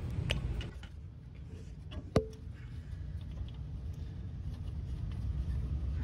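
Metal clicks from an R-134a quick-connect coupler and gauge hose being handled, with one sharp metallic click about two seconds in, over a steady low hum.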